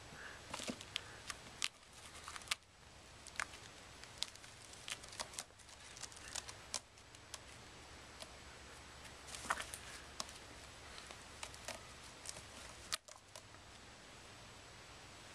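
Kitten playing at a sisal-rope scratching post and a feather wand toy: its claws scratch and snag on the rope, heard as scattered, irregular sharp clicks and scratches over a faint low hum.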